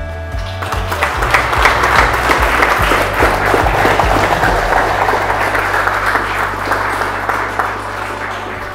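Crowd of guests applauding, swelling about half a second in and dying down near the end, over background music.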